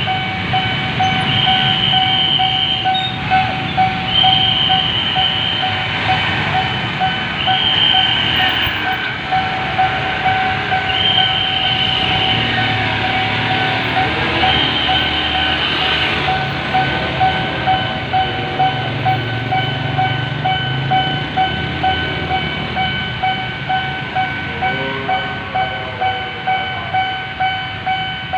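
Railway level-crossing alarm sounding a loud, pulsing tone, with a higher tone repeating about every three seconds through the first half. A train rumbles past underneath.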